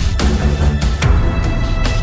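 Dramatic background music with a heavy bass and regular percussion hits.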